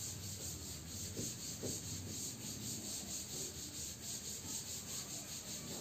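Blackboard duster rubbing chalk writing off a blackboard in repeated strokes.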